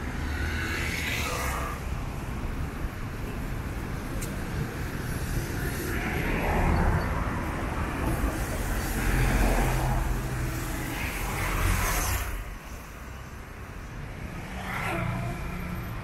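Busy street traffic: cars, minivans and motorbikes passing close by one after another over a steady low engine rumble, with tyre hiss on the wet road. The traffic eases for a couple of seconds after about twelve seconds in, then another vehicle passes.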